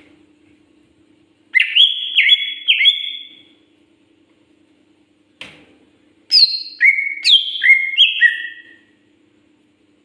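Greater green leafbird (cucak ijo) singing two loud bursts of clear whistled notes, each note dropping in pitch, the first starting about a second and a half in and the second just past six seconds. A short knock sounds between them, and a faint steady hum runs beneath.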